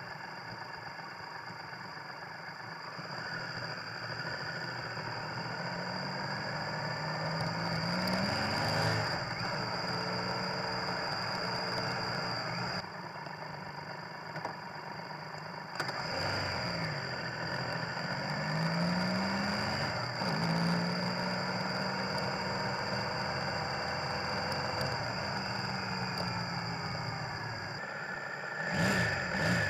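Triumph Tiger Explorer's three-cylinder engine heard through the bike-mounted dash cam, pulling away and accelerating twice, its pitch climbing and dropping at each gear change. A steady high whine runs underneath, and a quick run of knocks comes near the end.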